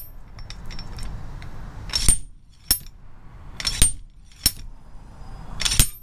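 Slide hammer on a two-jaw puller striking its stop in about five sharp metallic clanks at uneven intervals, with light clinks between, driving the outer dust seal off a wheel-hub knuckle.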